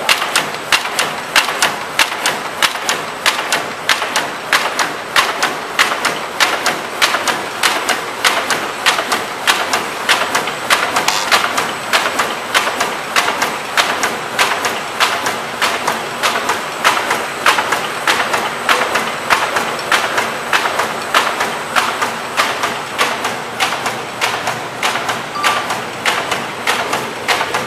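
Burger box making machine running at production speed: an even, fast mechanical clacking of its forming strokes, about three a second, over the steady hum of the drive and rollers.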